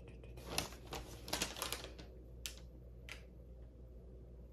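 Light clicks and taps of desk parts being handled while fitting the desktop onto the base, with a quick cluster of clicks about a second and a half in and single taps after it.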